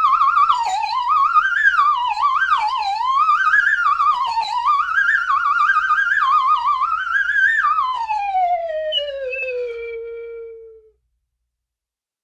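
Toy slide whistle sliding up and down in pitch with a fast vibrato, then one long falling slide that fades and stops about eleven seconds in.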